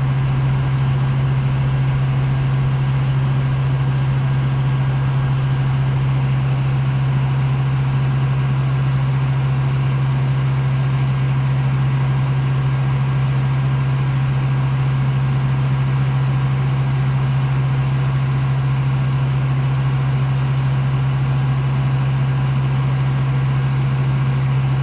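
Heavy diesel engine idling steadily with a constant low hum and no revving.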